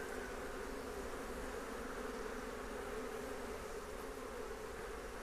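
Honey bees buzzing on a brood frame lifted from an open hive: a steady, even hum of the colony.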